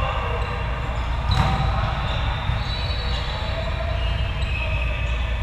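A volleyball being struck during a rally, with one sharp hit about a second and a half in and another near the end, echoing in a large gym over a steady background din.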